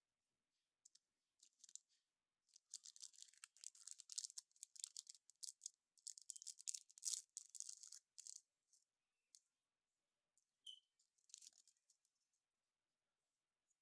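Slime crackling and popping as it is handled: a dense run of small high clicks and pops for about five seconds, then a few scattered pops.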